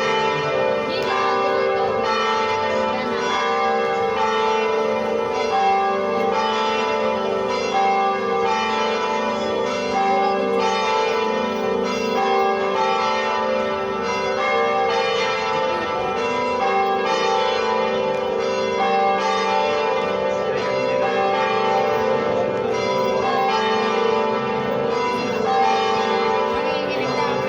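Church bells ringing for a fiesta: several bells of different pitch struck over and over, their tones overlapping in one continuous peal without a pause.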